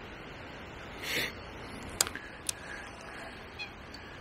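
Steady outdoor background hiss, with a short sniff about a second in and two sharp clicks about half a second apart near the middle.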